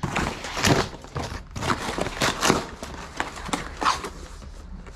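Packaging being handled and opened: a string of irregular rustles, crinkles and scrapes.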